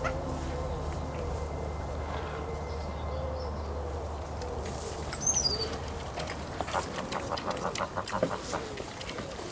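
Farmyard animals and birds: a soft low call repeating throughout, a short high chirp from a small bird about halfway through, and a quick run of clucking or clicking calls near the end.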